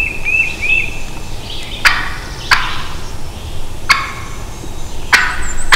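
Wild turkey gobbling, four loud gobbles about 2, 2.5, 4 and 5 seconds in, after a run of three quick high notes at the start.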